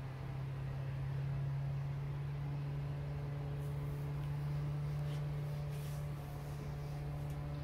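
Steady low mechanical hum with no change in pitch or level.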